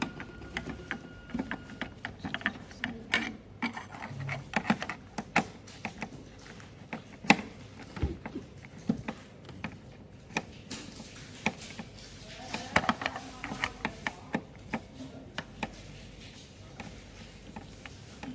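Irregular clicks and knocks of small hard parts being handled and fitted together while a machine is assembled.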